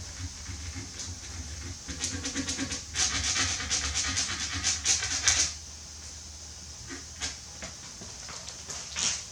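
A run of quick scraping strokes on wood, about eight a second, lasting some three seconds, over a steady low hum. A few single knocks follow near the end.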